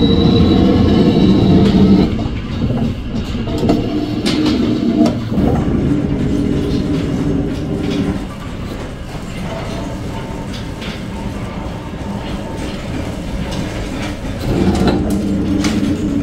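Metal planing machine cutting a cast-iron lathe bed casting: a steady machine rumble and hum with scattered clicks of breaking chips. It grows quieter about halfway through and louder again near the end.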